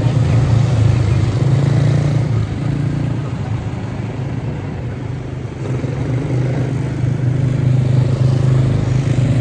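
Quarter midget race cars with Briggs & Stratton Animal single-cylinder engines running on track together in a steady engine drone. The drone fades somewhat about two seconds in and swells back up around six seconds in as the cars come round.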